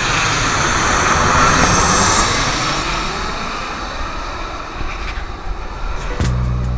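Jet airliner passing overhead, its engine noise loudest about a second and a half in, then fading as it flies away. Music comes in near the end.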